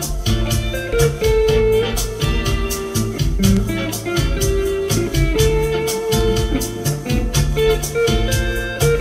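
Electric guitar playing a lead melody of held, sustained notes over a backing track of drums and bass with a steady beat.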